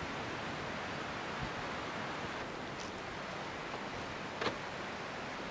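Steady outdoor rushing noise, with a faint tick near the middle and another about four and a half seconds in.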